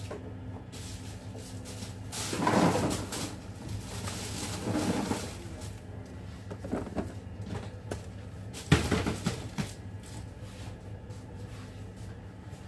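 Handling noises as foil-wrapped chocolates and plastic containers are moved on a steel worktop: scattered knocks, clicks and rustles, with a longer rustle about two and a half seconds in and a sharp click near the nine-second mark, over a steady low hum.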